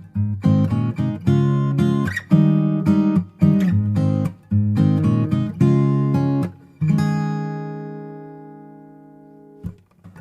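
Background music of strummed acoustic guitar: rhythmic chords, then a chord about seven seconds in left ringing and slowly fading out.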